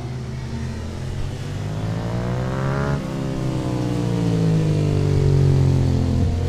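Racing motorcycle engine on a circuit: the revs climb, break off sharply about three seconds in, then the pitch slides slowly down, over a steady low engine drone.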